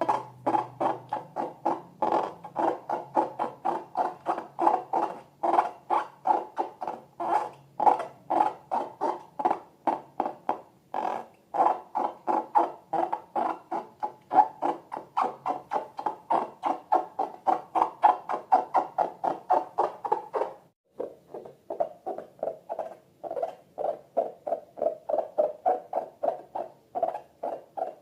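Slime being squeezed and worked by hand in quick, squeaky squelches, about three to four a second. There is a short break about 21 seconds in, after which the squelches go on a little lower in pitch.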